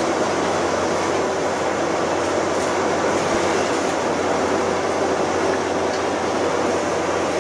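Steady machinery noise of a crab processing line, with conveyors and motors running under a constant low hum.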